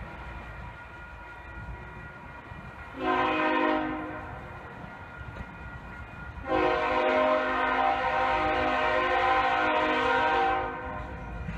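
Diesel freight locomotive's air horn sounding a chord of several notes: a short blast about three seconds in, then a long blast of about four seconds, over the low rumble of the approaching locomotive.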